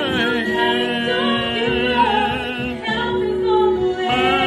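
A woman singing a gospel song solo into a microphone, holding long notes with vibrato and sliding between pitches.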